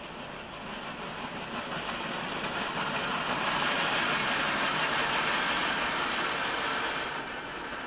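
A vehicle going past close by: a rushing noise that builds over a few seconds, is loudest a little past the middle, then eases off near the end.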